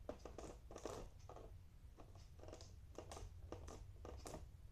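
Freshly made, very soft slime being squished and pulled in the hands, giving a string of faint, irregular sticky crackles and squelches.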